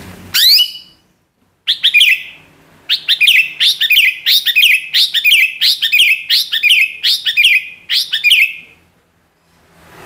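Female green leafbird (cucak hijau) calling: one rising note, then after a pause a long string of sharp, repeated notes at about two a second, the rhythmic 'ngentrok' call.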